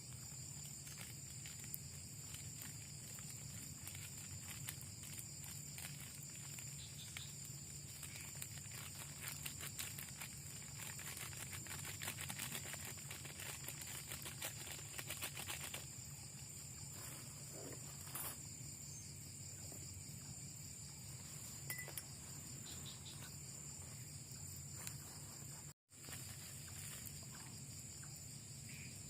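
Chorus of night insects, a steady high trill, with a denser rapid ticking through the first half or so.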